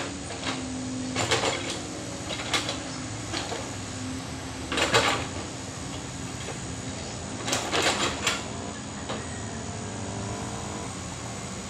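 Mini excavator's diesel engine running steadily while it digs through landslide mud and rock, with several short metallic clanks and knocks from the working machine, loudest about five seconds in and in a cluster around eight seconds.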